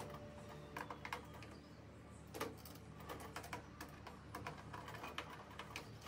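Faint, irregular light clicks and ticks of a screwdriver turning the screws of a door lock's lever handle and lock plate, metal tapping on metal. The strongest click comes about two and a half seconds in.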